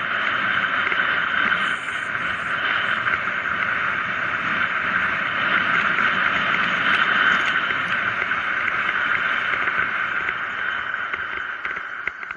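Steady rushing wind and tyre noise from a mountain bike descending fast on asphalt. It fades near the end as the bike slows for a hairpin bend.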